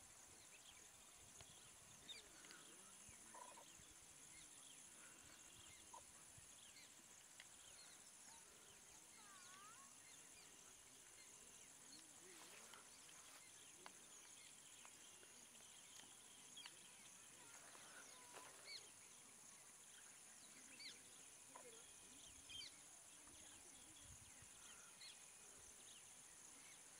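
Faint dusk countryside ambience: a steady high-pitched insect drone with scattered short bird chirps and a few brief snaps.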